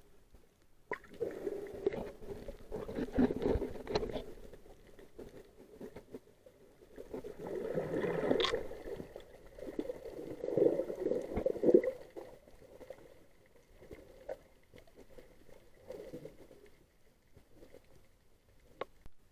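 Muffled underwater sloshing and gurgling of water against a submerged camera, in two long surges about a second in and again around eight seconds, then fainter.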